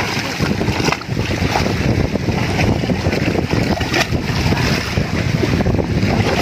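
Wind buffeting the microphone over the wash of shallow sea water, with a few splashes from a swimmer's arm strokes.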